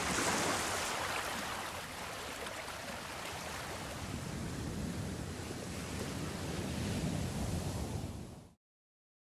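Ocean waves washing on a shore: a steady surf rush that cuts off suddenly about eight and a half seconds in.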